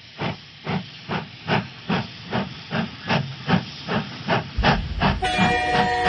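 Steam locomotive chuffing: evenly spaced hissing puffs, about two and a half a second. Music with sustained tones comes in under it about five seconds in.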